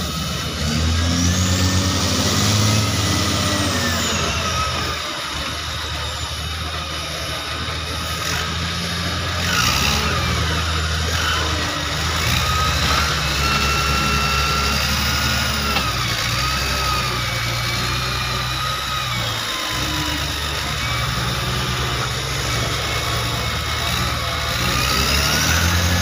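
Diesel engine of a wheel loader with a log grapple, revving up and down as it works, with a high whine that rises and falls with the engine speed.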